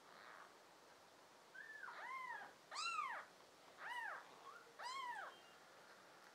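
Newborn kittens mewing: about four thin, high-pitched mews in quick succession, each rising and then falling in pitch, beginning about a second and a half in.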